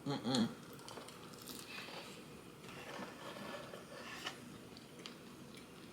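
Faint eating sounds: quiet chewing and handling of food, with a few light clicks.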